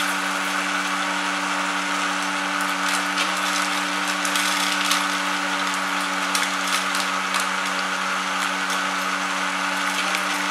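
Homemade sunflower-seed huller running: a small electric motor hums steadily as it spins a drink-can drum, with a continuous rattle and scattered sharp clicks of seeds and shells being knocked about inside.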